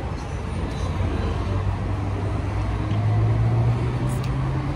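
A motor vehicle running steadily with a low engine hum that rises slightly in pitch about three seconds in.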